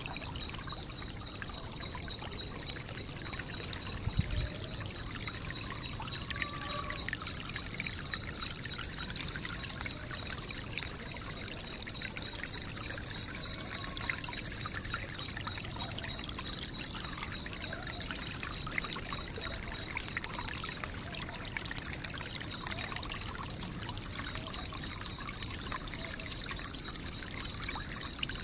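Steady trickling, water-like background noise with a faint steady high tone running through it. There is one soft low thump about four seconds in.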